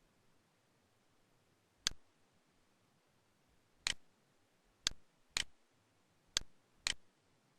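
Computer mouse clicks, six sharp single clicks at uneven intervals, the last four in two quick pairs about half a second apart.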